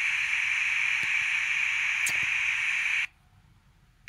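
Radio static hiss from a HackRF PortaPack H2's salvaged laptop speaker, with no station tuned in. The hiss is steady with a couple of faint clicks, then cuts out abruptly about three seconds in for about a second.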